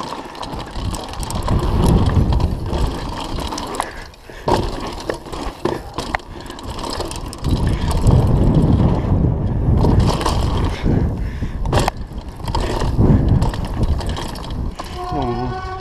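Mountain bike ridden fast down a dirt trail: a rumble of knobbly tyres on dirt and wind on the microphone, with the bike's rattle and clicks and a sharp knock about twelve seconds in. The rumble swells and dips as the bike speeds up and slows through the turns.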